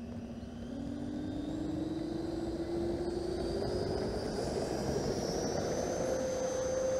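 E-flite ViperJet's 90 mm electric ducted fan spooling up for takeoff: a whine that rises steadily in pitch as the throttle comes up, then holds steady near the end, over the rumble of the wheels rolling on the runway.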